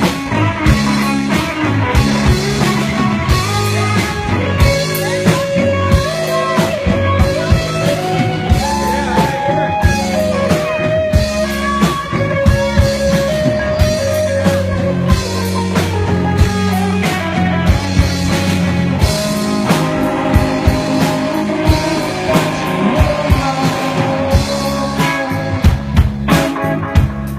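Rock band playing an instrumental passage: drum kit keeping a steady beat under bass and guitars, with a lead guitar line winding up and down over it.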